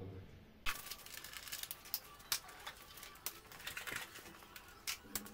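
Metal hand tools clinking and rattling in a tool chest drawer as they are rummaged through. The irregular clatter of clicks starts about a second in.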